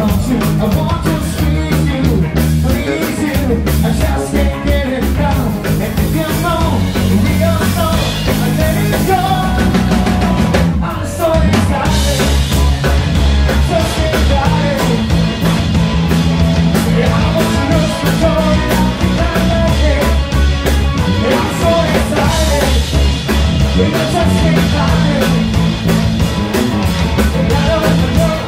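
Live rock band playing: a singer on a microphone over a drum kit, guitars and keyboard, loud and steady, with a brief break in the music about eleven seconds in.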